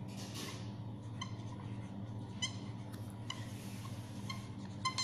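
Felt-tip marker squeaking faintly on a writing surface in short strokes, about one a second, as words are written, over a steady low hum.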